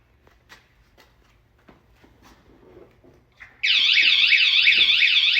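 Wsdcam 113 dB vibration-sensor motorcycle alarm going off. After a few faint taps, a loud warbling siren starts about three and a half seconds in, sweeping up and down in pitch roughly three times a second.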